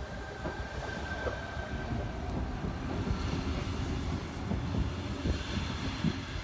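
Electric passenger train on the move, a steady low rumble with a whine that fades out about two seconds in, and a few short clunks from the wheels on the track.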